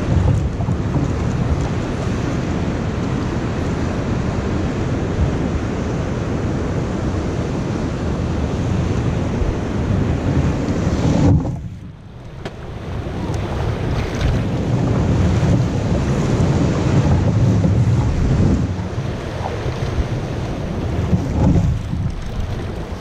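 Wind buffeting the microphone over water rushing along a kayak's hull as it is paddled through ocean swell. The noise drops away sharply for about a second near the middle, then builds back.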